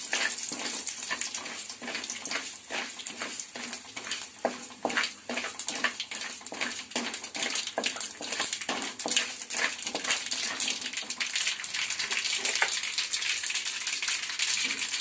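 Mustard seeds popping and spluttering in hot oil in a tempering with urad dal and dried red chillies: a rapid, irregular crackle of sharp pops over a light sizzle.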